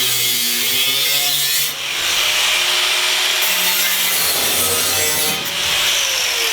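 A handheld power tool cutting the bus's rusted steel floor, running loud and steady, its motor pitch sagging and recovering under load, with two short let-ups.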